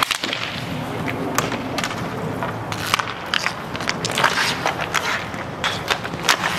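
Inline hockey skate wheels rolling and scraping on a plastic sport-court surface, with sharp clacks of sticks and puck striking scattered irregularly through it.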